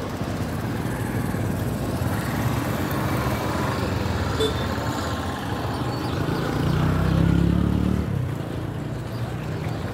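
Road traffic: motor-vehicle engine noise that grows louder for a second or so around seven seconds in, then falls back.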